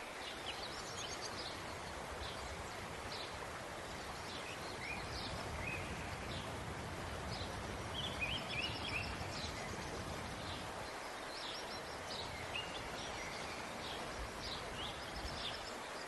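Small birds chirping and trilling in short calls throughout, over a steady outdoor hiss.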